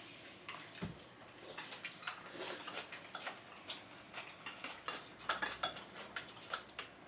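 Eating utensils clinking and tapping against bowls and plates during a meal: a scatter of small light clicks, thickest about five to six seconds in, with one dull knock about a second in.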